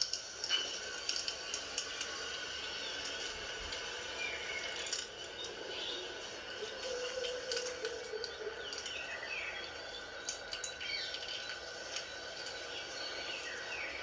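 Indian ringneck parakeet preening, with many small scattered clicks and a few faint soft chirps.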